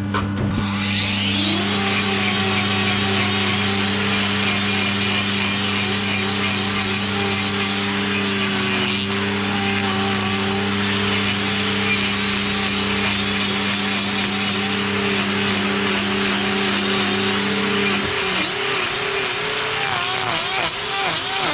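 Angle grinder with a hoof-trimming disc cutting a dairy cow's overgrown hoof. It spins up with a rising whine about a second in, then its pitch keeps dipping and recovering as the disc bites into the horn. Under it runs a steady low hum, which stops a few seconds before the end.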